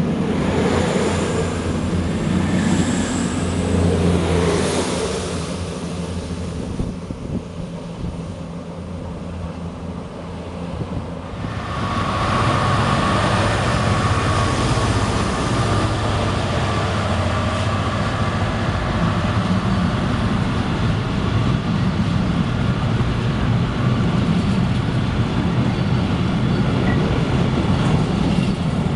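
A Virgin express train passes at speed, its noise fading over the first few seconds. About twelve seconds in, a Freightliner Class 66 diesel locomotive, with its two-stroke V12 engine, runs through with a heavy low drone and a steady mid-pitched tone. A long rake of bogie hopper wagons then keeps rolling by on the rails.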